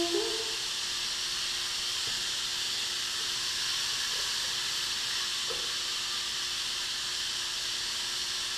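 Steady, even hiss with a faint steady hum underneath: room and recording noise at an indoor RC track, with no clear motor or tyre sound from the small electric RC motorcycles.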